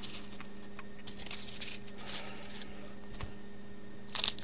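Hockey trading cards being handled and slid through by hand: soft, brief rustles every second or so, with a louder flurry of card handling near the end, over a steady low hum.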